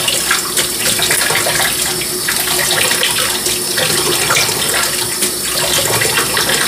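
Kitchen tap running into a saucepan of rice in a stainless steel sink, with a hand swishing and splashing through the rice as it is rinsed of its starch. The running water stays steady.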